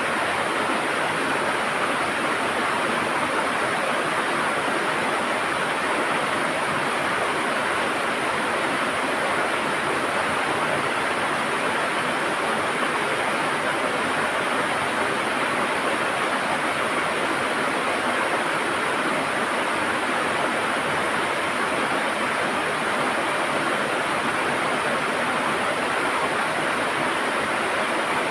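River water rushing and gurgling over stones, a steady even noise with no breaks.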